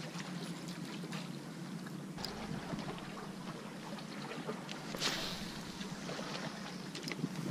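Water lapping and trickling against the rusted steel side of a wreck, over a steady low hum. About five seconds in comes a short whoosh as a spinning rod is cast.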